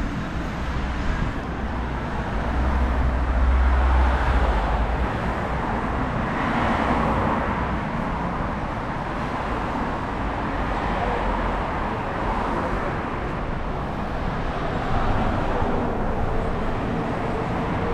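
Busy city street traffic noise with vehicles passing. A deep low rumble swells up a few seconds in and fades again.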